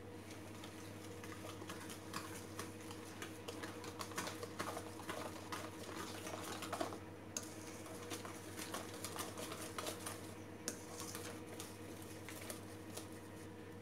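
Wire balloon whisk stirring cake flour into a wet egg mixture in a stainless steel bowl: quick, irregular clicks and scrapes of the wires against the bowl, pausing briefly about halfway through. A faint steady hum sits underneath.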